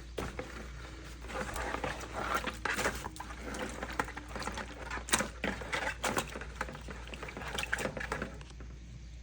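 Hands washing a raw parrot fish in vinegar: irregular wet splashes, squelches and small knocks as the fish is rubbed and turned. They die down near the end.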